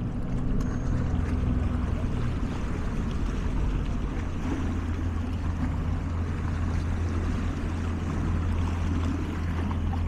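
Small waves washing and splashing over shoreline rocks, over a steady low engine hum from boat traffic on the water.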